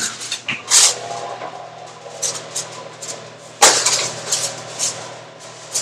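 Metal clanks and rattles from a wall oven's wire rack and a foil-covered baking pan of ribs being loaded into the oven, with a sharp knock about a second in and the loudest clank about three and a half seconds in.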